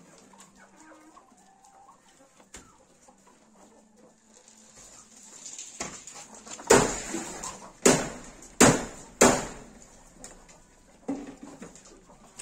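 Rabbits thumping in a wooden hutch: a little past the middle, four loud thumps within about two and a half seconds, then a smaller one near the end.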